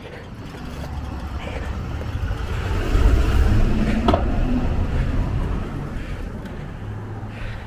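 Diesel engine of a yellow school bus running as it passes close by: a deep rumble that grows louder, peaks midway, then fades. There is a sharp click about four seconds in.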